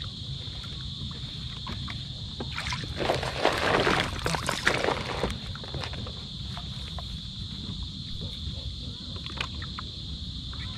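Steady high-pitched chirring of night insects, with a burst of water splashing and sloshing from about three to five seconds in.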